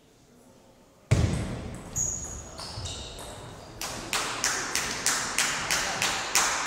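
A sudden burst of cheering and shouting about a second in as a table tennis rally ends, then spectators clapping in a steady rhythm, about three claps a second, echoing in the hall.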